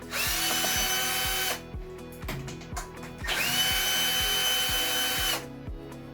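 A power drill or electric screwdriver runs twice, about a second and a half and then about two seconds. Each run spins up quickly and then holds a steady whine.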